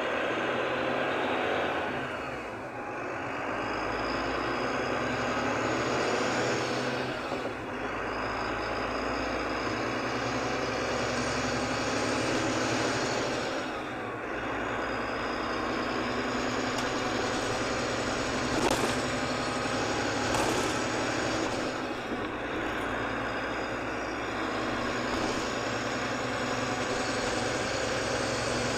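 Volvo B9R's diesel engine heard from inside the bus as it pulls away, its note rising through each gear and dropping back at the changes about two, seven and fourteen seconds in. It then runs at a steady speed, with two sharp knocks around nineteen and twenty seconds in.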